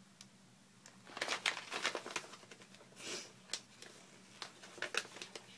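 Plastic snack pouch crinkling as it is handled, in several short crackles between about one and five seconds in.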